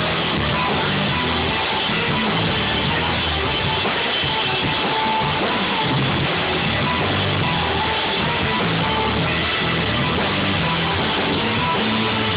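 A Celtic rock band playing live: fiddle, electric bass, keyboard and drums together in a steady, full-band passage.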